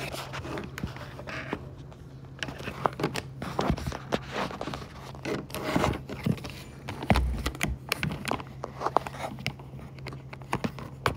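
Handling noise on a phone's microphone: irregular clicks, scrapes and rustles with a few heavier thumps as the phone is held and moved, over a steady low hum.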